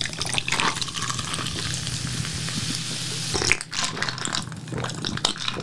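Coca-Cola Zero poured from a can over ice into a stainless steel mug, a steady fizzing pour for about three seconds. After that come a few sharp clinks and sips as the mug is drunk from.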